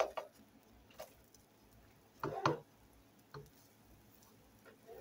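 Plastic spatula clicking and scraping against a nonstick frying pan while a folded egg is turned: a click at the start, another about a second in, and a louder clatter a little past two seconds.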